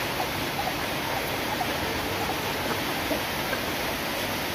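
Steady rain falling, a constant even hiss.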